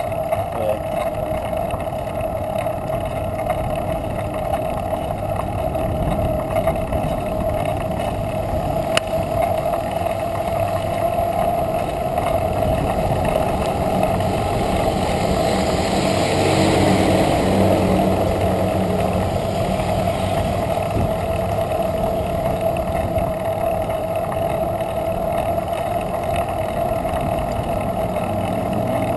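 Steady wind rush and road noise on the microphone of a camera riding on a moving bicycle, with a constant whirring hum underneath. About halfway through, a louder, hissier rushing swells up for a few seconds and fades.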